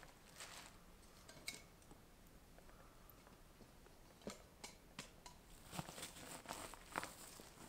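Near silence broken by faint rustling and a scatter of short clicks as a backpack hung on a tree trunk is handled, busier in the second half.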